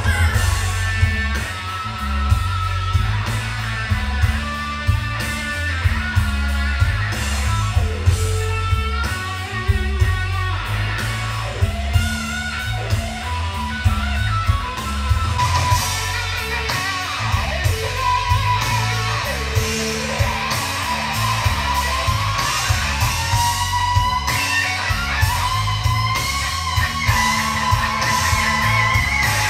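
Rock music with electric guitar and a heavy, pulsing bass line, played back through vintage hi-fi loudspeakers with an active subwoofer; it gets fuller and brighter about halfway through.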